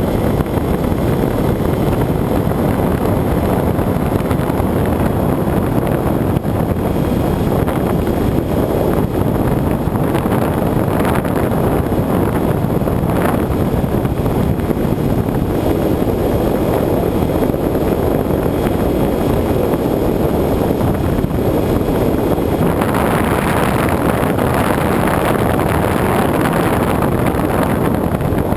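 Steady rush of airflow over the microphone of a camera riding on a Bixler electric RC plane in flight, mixed with the drone of its motor and propeller. It turns brighter and hissier from about 23 seconds in, as the plane banks steeply.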